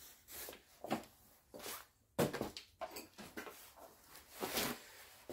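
Faint, irregular rustling and scraping of hands and parts being handled in a car's engine bay, with a louder scrape a little past two seconds in.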